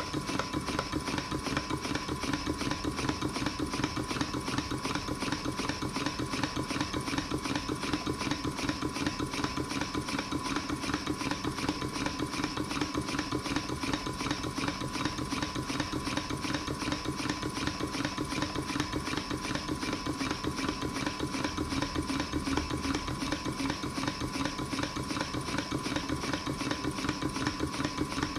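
Stuart Models model beam engine running steadily, a fast even mechanical beat from its strokes and moving parts, with a steady whine underneath.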